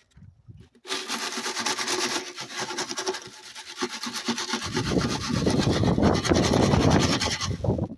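Rocks and wet sand being poured and shaken through a mesh sifting screen, making a loud gritty rasping. It starts about a second in and grows heavier and deeper about halfway through.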